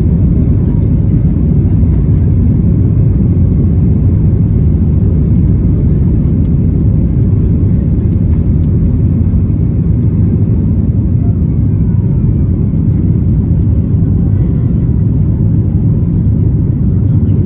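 Boeing 737 jet engines at takeoff thrust, heard inside the cabin as a loud, steady, deep rumble through the takeoff roll, liftoff and initial climb.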